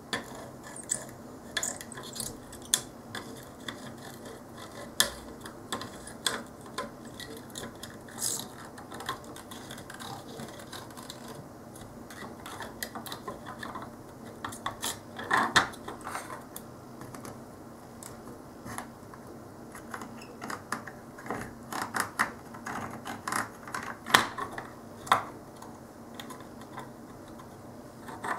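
Small irregular clicks, taps and scrapes of a soldering iron and screwdriver on a circuit board as a DIP chip is heated and levered loose. The clicks come thicker around the middle and in the last third, as the chip starts to move.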